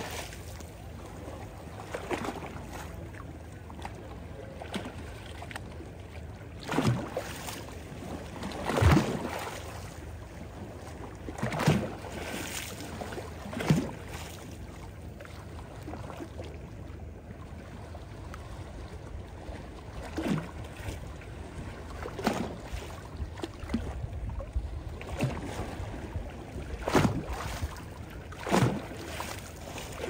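Small waves lapping at a pebbly shoreline on a calm sea: a soft steady wash with a short splash every few seconds at irregular intervals.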